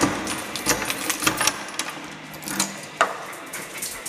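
Keys jangling and clicking at a front door, a run of small sharp metallic rattles.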